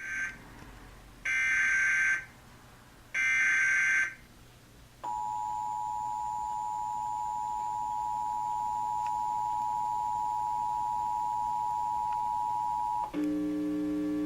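Emergency Alert System SAME header data bursts: three bursts of shrill digital warbling, the last two about a second each. Then the EAS two-tone attention signal (853 and 960 Hz together) holds steady for about eight seconds before cutting off, and a steady low buzz begins.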